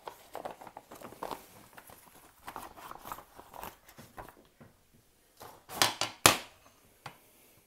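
Clear plastic packaging bag crinkling and rustling as it is handled and pulled off a motorcycle handlebar. About six seconds in there are two louder, sharp knocks close together.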